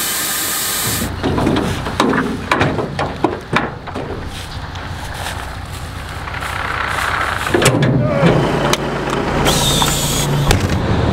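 Corn pouring from a semi hopper trailer through the pit grate with a steady hiss, cut off suddenly, then metal clanks from the trailer's hopper gate and its crank. Near the end a diesel semi truck's engine runs steadily, and a sharp air hiss about ten seconds in comes from the truck's air brakes.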